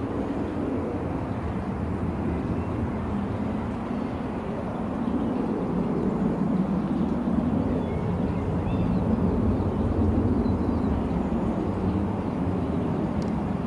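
Airbus A321 jet engines at taxi power, a steady low rumble that grows a little louder about five seconds in.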